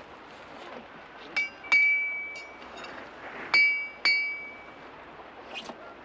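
Metal tools clinking against the chopper's rear wheel as it is worked on for a flat tyre. There are several sharp metallic strikes, each ringing briefly; the loudest come once in the first half and twice about half a second apart just after the middle.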